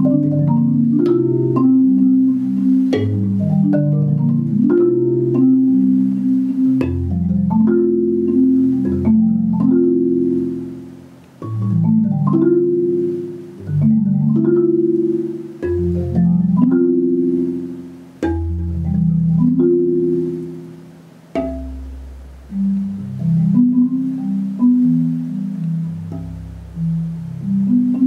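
Solo marimba played with four mallets, improvising on repeating note patterns in the low and middle register. In the second half, deep bass notes are left to ring and die away between phrases, each followed by a sudden new entry.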